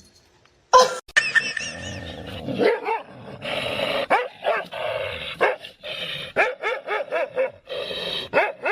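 A dog barking and yipping over and over in quick, pitched calls, starting about a second in.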